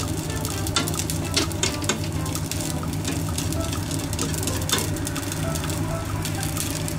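Stir-frying in a pan: a light sizzle with scattered sharp clicks of a utensil against the pan, over a steady low hum.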